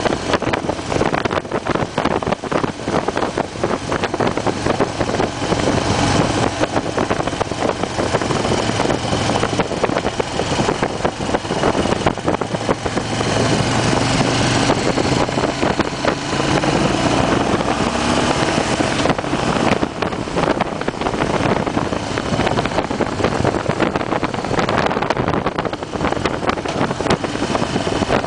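A 2008 Harley-Davidson Fat Bob's air-cooled V-twin running steadily under way, heard from the rider's seat under heavy wind buffeting on the microphone.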